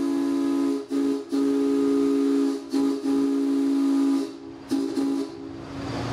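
Steam whistle of Texas and Southeastern 4-6-0 locomotive #13 sounding a chord of several steady tones in a series of blasts. A blast cuts off just under a second in, then come a brief toot, two long blasts and a few short toots near the end, with steam hissing under and between them.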